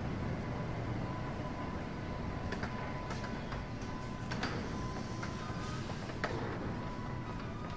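A train running slowly: a steady low rumble with a thin steady whine, and scattered clicks and squeaks through the second half.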